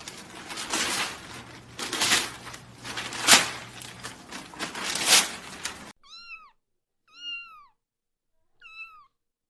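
Scuffling, rustling noise with a few sharp knocks, then, about six seconds in, a cat meowing three times: short calls, each rising then falling in pitch.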